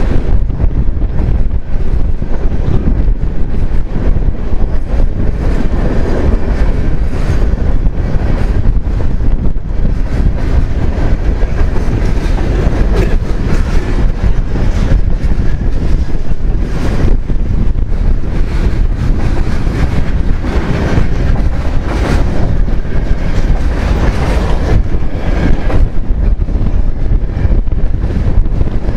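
Freight cars of a long mixed freight train rolling past close by: a steady rumble of steel wheels on rail, broken by repeated clacks as the wheels cross rail joints.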